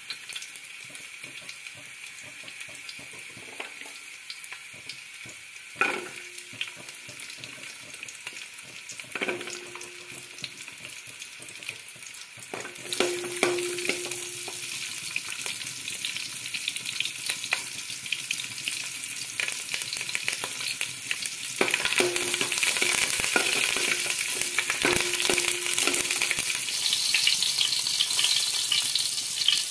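Dried red chillies, garlic and then shallots sizzling in hot oil in a metal pot, stirred with a perforated steel spoon that scrapes and clinks against the pan, now and then setting off a short ringing tone. The sizzle gets louder in steps, first a little under halfway through when more is added to the oil, and again later on.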